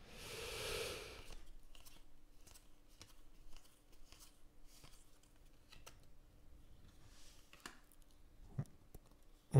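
Baseball trading cards being thumbed through by hand, cards sliding against the stack: a soft swish over the first second or so, then faint scattered flicks of card stock.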